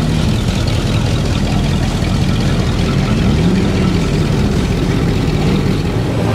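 Engine of a classic car running at low speed as it rolls by, a steady low note that rises and falls slightly.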